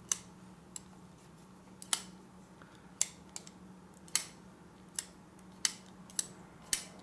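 Kizer Begleiter XL plunge-lock folding knife being flipped open and dropped shut over and over on its ceramic Skiff pivot bearings: a run of sharp clicks, roughly one a second, as the blade snaps into lock and shuts.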